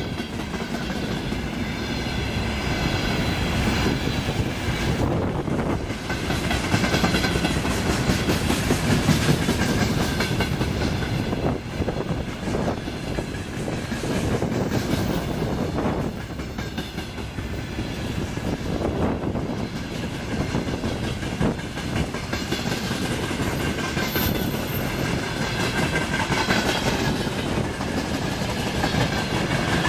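Long freight train of wagons rolling past, wheels clattering over the rail joints, with a steady high ringing from the wheels on the rails and strong wind noise.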